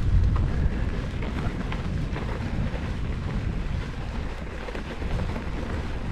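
Wind rumbling on the microphone while a mountain bike's knobby tyres roll over a dry dirt track, with scattered light ticks and rattles from the bike and the ground.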